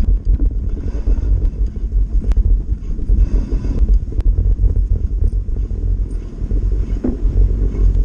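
Steady low rumble of wind on the microphone mixed with the fat bike's 4.8-inch tyres rolling over snow on a fast descent, with two sharp clicks from the bike around the middle.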